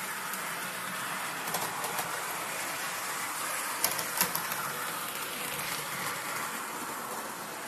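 Model railway locomotives running on the track: a steady running noise with a few sharp clicks, the loudest two close together about four seconds in.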